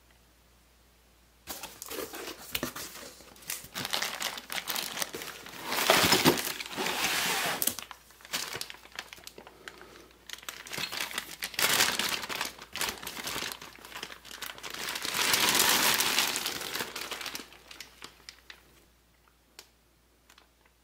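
Packing material from a ceiling fan's original box being crinkled and crumpled as parts are unwrapped, in repeated waves of rustling from about a second and a half in, dying down to a few light clicks near the end.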